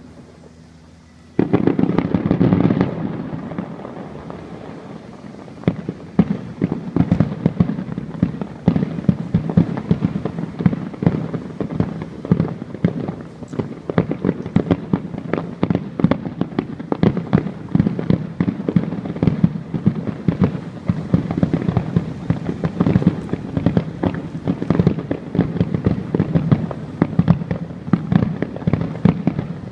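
Fireworks display: a loud burst about a second and a half in, then many bangs and crackles in quick succession.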